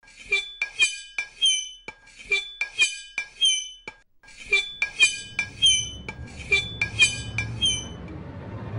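A metal utensil striking glass, ringing clinks in repeating groups of about four strikes, with a short pause about four seconds in. A low rumbling noise rises near the end.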